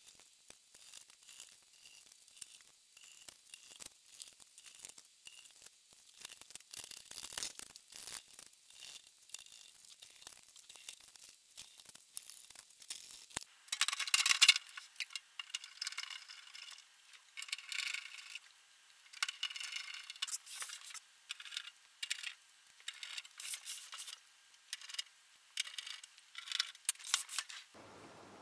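Metal clinks, scrapes and rattles of a Denon AVR-2802 receiver being put back together: a screwdriver working at the rear panel and the sheet-metal cover being fitted over the chassis. The clicks come one after another throughout, with a louder clatter about halfway through.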